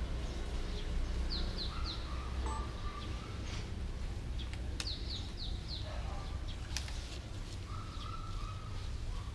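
Short, high, falling chirps in quick runs of three or four, about a second in and again around five seconds, over a steady low hum. A few sharp clicks are scattered through it.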